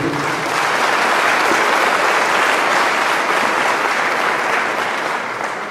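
A congregation applauding: a dense, steady clapping that dies away near the end.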